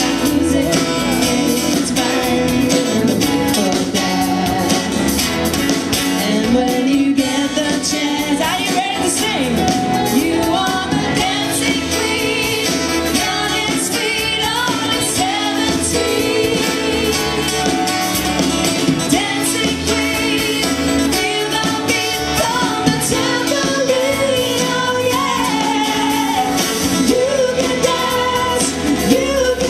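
A live pop band playing, with acoustic and electric guitars and keyboard, and a woman singing the melody over it.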